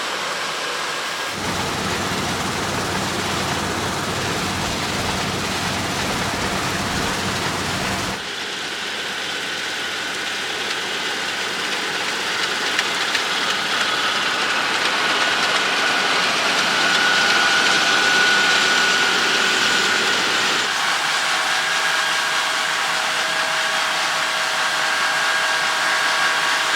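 John Deere X9 1100 combine harvester running under load while harvesting barley: a dense, steady mechanical noise with a faint whine. The sound changes abruptly about a second in and again about eight seconds in, and grows a little louder towards the middle.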